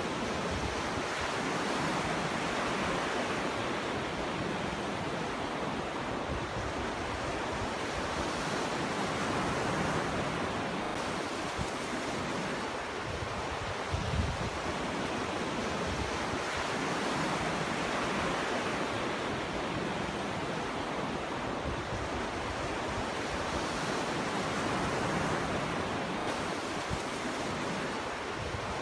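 Ocean waves breaking and washing on a shore: a continuous surf that swells and eases every seven or eight seconds, with a brief low thump about halfway through.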